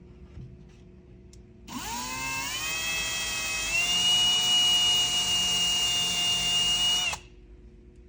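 Kobalt cordless drill running a 1/2-inch bit into the wall, boring into a wooden stud or board behind it. The motor whine starts about two seconds in, rises in pitch as the drill spins up, holds steady for a few seconds, then stops abruptly.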